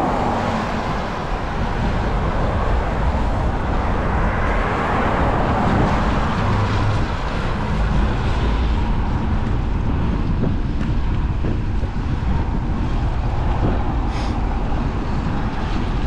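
Steady rush of wind and road traffic heard while riding in the rain, with a vehicle passing and swelling up around five seconds in.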